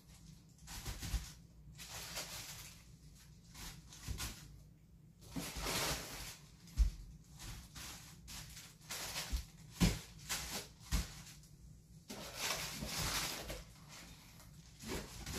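Wrapped toilet paper rolls being handled and stacked on closet shelves: irregular rustling and swishing of the rolls, with a few soft thumps as they are set down.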